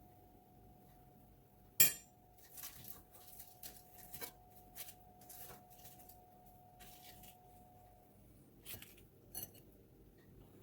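Hard household items being handled: a sharp clink about two seconds in, then lighter clattering and tapping, and two more clinks near the end. A faint steady hum runs underneath and stops shortly before the last clinks.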